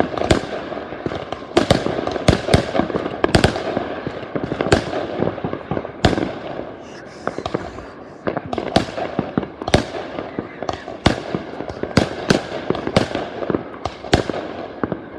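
New Year's fireworks going off: a dense, irregular run of sharp bangs, sometimes several a second, over a continuous background of noise.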